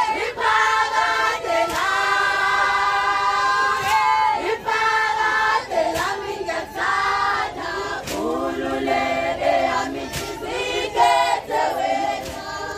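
A group of women singing a traditional Zulu song together in chorus, with a few short sharp sounds cutting through.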